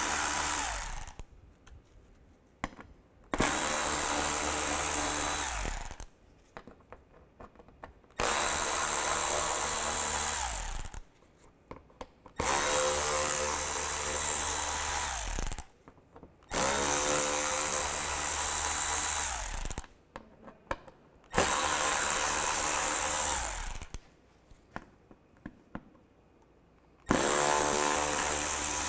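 Small cordless power tool with a T20 socket running in repeated spells of about three seconds, backing out the screws that hold the lower splash shield, with short pauses and small clicks between screws.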